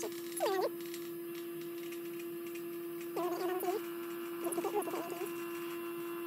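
Well pump running with a steady hum as it builds pressure toward its 60 psi cut-off on a freshly repaired pressure tank. Hens cluck three times over it.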